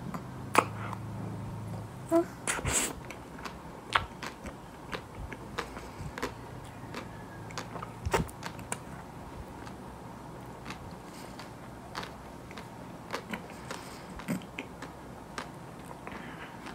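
Close-miked mouth sounds of eating soft vanilla ice cream: wet lip smacks and tongue clicks at an irregular pace, with a busier cluster about two to three seconds in, and the tongue licking a wooden ice-cream stick.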